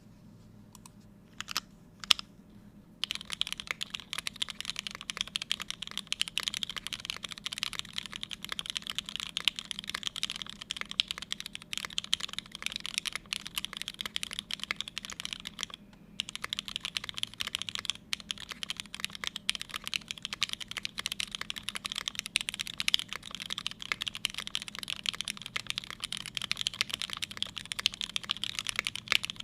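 Forever65 mechanical keyboard with lubed, retooled Cherry MX Black linear switches on a carbon fibre plate and GMK keycaps, no foam, being typed on. A few single keystrokes come first, then fast continuous typing from about three seconds in, with a short break about halfway through.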